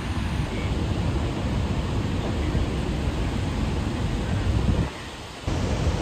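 Roar of Niagara's Horseshoe Falls: a steady, dense rush of falling water, heaviest in the low rumble. It dips for about half a second near the end, then carries on.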